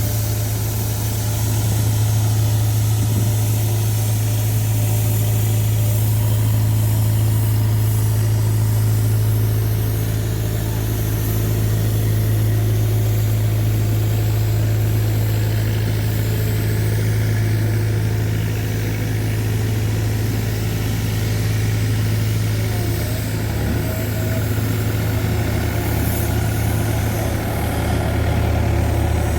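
Road roller's engine running at a steady speed, a constant low hum with no revving.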